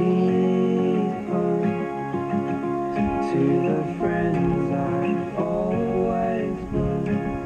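Background song with strummed acoustic guitar and a voice singing a melody that rises and falls.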